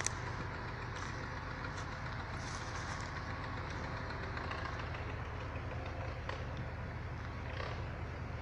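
KAMAZ logging truck's diesel engine idling steadily, with a sharp click right at the start and a few faint knocks.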